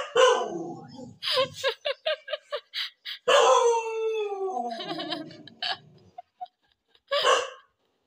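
Indian pariah dog barking and howling: a sharp bark-yowl at the start, a quick run of short yelps, then a long falling howl about three seconds in, and two more short barks near the end.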